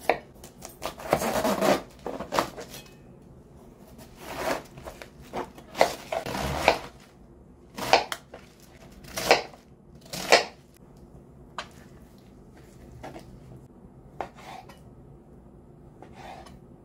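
Kitchen knife cutting vegetables and then raw chicken on a plastic cutting board: irregular crunching cuts through cauliflower and cabbage, with the blade tapping the board. After about eleven seconds the cuts turn softer and sparser, as when slicing soft meat.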